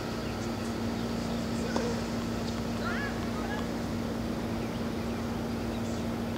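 Steady outdoor background noise with a constant low hum, and one faint sharp knock of a tennis ball being struck a little under two seconds in.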